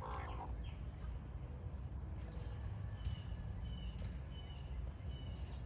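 Birds chirping in short high notes, repeated most thickly from about three to five seconds in, over a steady low rumble.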